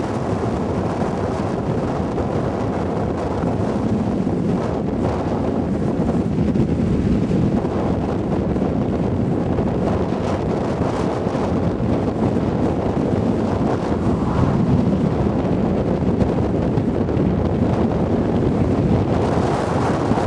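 Strong wind blowing across the microphone: a steady, loud rumbling buffet, heaviest in the low end.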